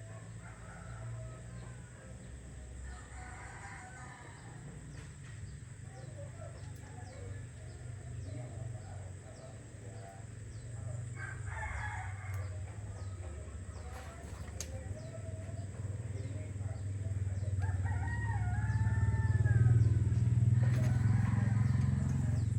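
Rooster crowing a few times, with other bird calls, over a low rumble that swells to its loudest near the end.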